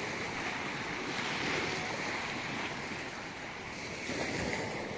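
Small lake waves breaking and washing steadily onto a gravel shore, with wind on the microphone.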